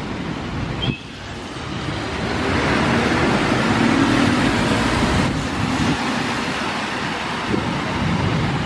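Garbage truck driving past over steady road traffic: its engine and tyre noise builds from about a second in to its loudest around four seconds, then slowly eases off as it moves away.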